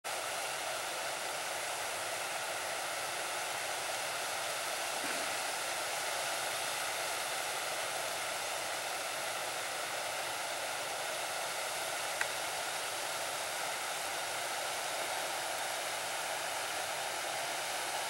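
Small creek waterfall: water spilling over rocks in a steady, even rush.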